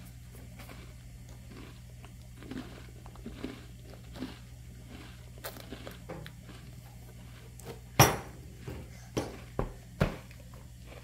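Baby softly chewing and mouthing a baby chip, then a sharp knock about eight seconds in followed by three lighter knocks of hands on the plastic high-chair tray.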